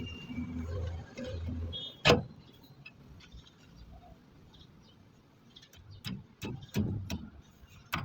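Metal engine parts clinking and knocking as they are handled during reassembly. There is one sharp clank about two seconds in, then a few lighter knocks near the end. A low hum fades out in the first two seconds.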